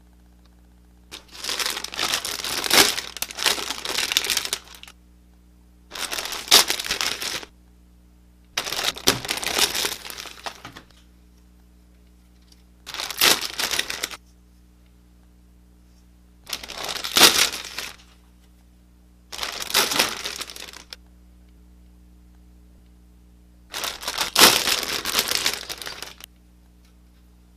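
Thin clear plastic bags crinkling and rustling as plastic model-kit runners are handled and unbagged, in seven separate bouts of a second or more each, with quiet pauses between.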